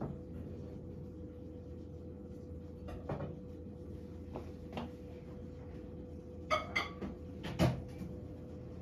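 Kitchen clatter: scattered light clicks and knocks of dishes and a cupboard being handled, with a quick cluster of clatters near the end, over a steady faint hum.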